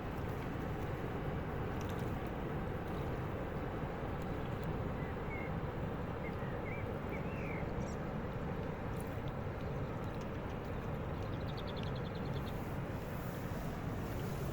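Riverside outdoor ambience: a steady low rumble and hiss. A few faint bird chirps come about halfway through, and a brief rapid ticking trill comes near the end.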